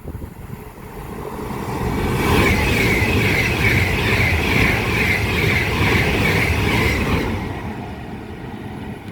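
Avanti West Coast Class 390 Pendolino electric train passing through the station at speed. Its noise builds over the first two seconds and stays loud for about five seconds with a wavering high whine, then fades away.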